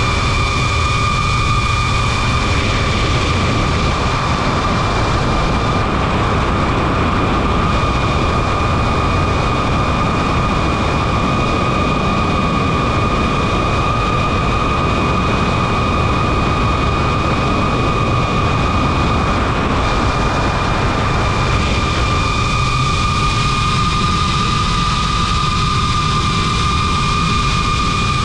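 DJI FPV drone's motors and propellers in flight, heard from on board: a steady high whine with a rush of wind. The whine dips slightly in pitch about three quarters of the way through.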